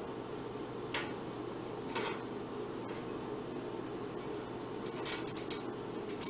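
Steady low background hum with a few short faint clicks: one about a second in, one at two seconds, and a quick cluster around five seconds.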